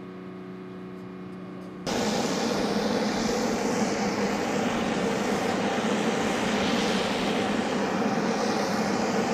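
Aircraft engines running on a military flight line: first a steady, fairly quiet engine hum, then about two seconds in a sudden switch to much louder, steady rushing engine noise.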